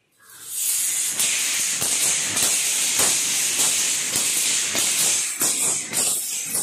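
Surul vaal, a flexible coiled steel sword, whirled fast: its thin steel blades swish through the air in a loud continuous hiss, broken by many quick whooshes as each sweep passes. The hiss sets in sharply within the first half second.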